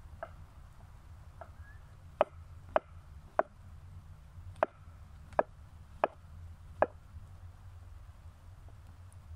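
Kitchen knife slicing button mushrooms on a wooden cutting board: seven sharp knocks of the blade hitting the board, spaced unevenly over about five seconds, then stopping.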